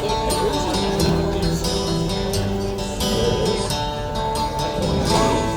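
Acoustic guitar strummed along with held instrument notes, played live during a sound check.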